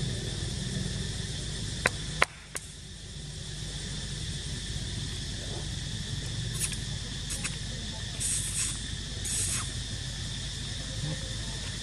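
Steady drone of insects, with three sharp clicks about two seconds in and two short high hissing bursts near the end.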